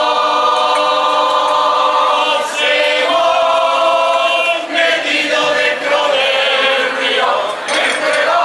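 A choral society's choir singing together. It holds one long note for the first couple of seconds, then moves through a series of shorter notes.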